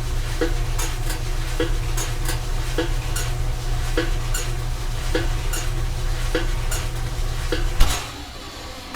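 Clothes dryer running: a steady low rumble from the turning drum with a regular clink about every 1.2 s as the load tumbles, stopping shortly before the end.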